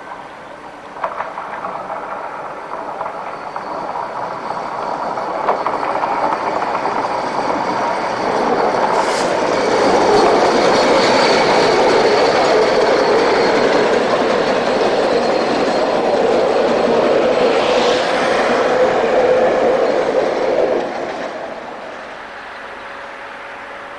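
Narrow-gauge steam locomotive and its coaches passing close by on the track. The sound grows louder as it approaches, is loudest at the pass-by, and falls away quickly as the train moves off.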